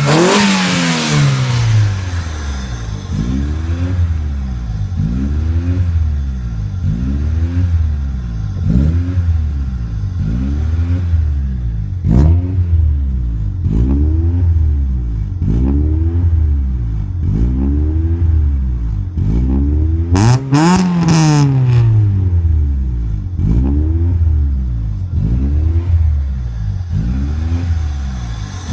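A coupe's freshly rebuilt car engine running on its first start, its idle rising and falling evenly about every second and a half. The engine is revved sharply twice, at the start and about two-thirds of the way in.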